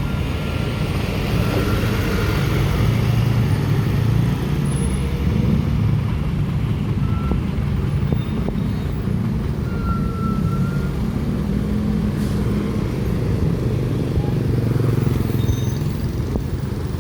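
Heavy diesel truck engines running in slow road traffic, a steady low engine sound with no clear single event.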